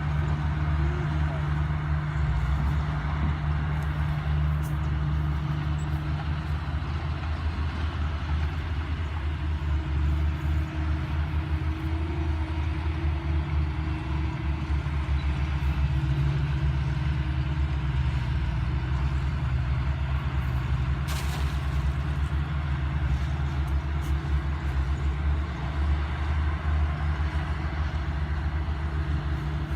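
Engine running steadily at an even speed, a low drone that holds without change.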